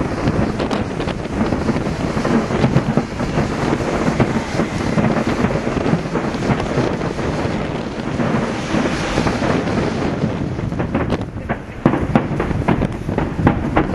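Fireworks going off along a harbour breakwater: a dense run of bangs and crackles with wind buffeting the microphone. Separate sharp bangs stand out over the last few seconds.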